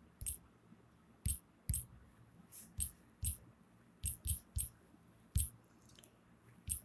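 Typing on an Android phone's touchscreen keyboard: about ten short, sharp key-tap clicks at an uneven typing pace.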